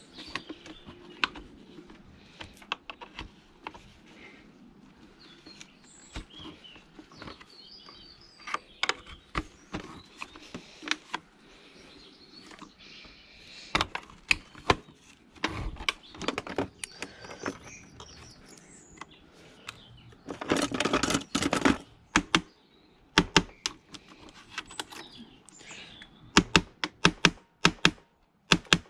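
Hand tools clicking and knocking on the hard plastic housing of a Dyson DC41 vacuum during its teardown, as a screwdriver works at the screws and tools are picked up and set down. A dense rattle lasts about two seconds roughly two-thirds of the way through.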